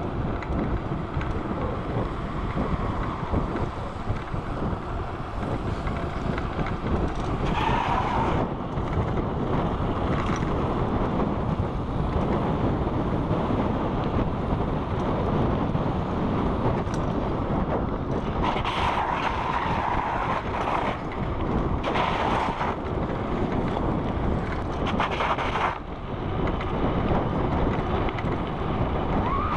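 Steady rushing wind on the microphone mixed with the rolling rumble of BMX bike tyres on an asphalt path at speed.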